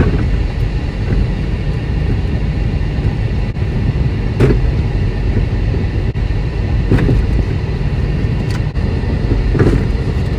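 Road and engine noise heard inside the cabin of a moving 2014 Jeep Compass: a steady low rumble, with several brief knocks in the second half.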